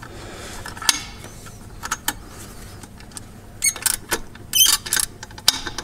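Scattered metallic clicks and clinks of a hand wrench working the bottom bolts of a supercharger mount on an engine block, with small quick runs of clicks in the second half.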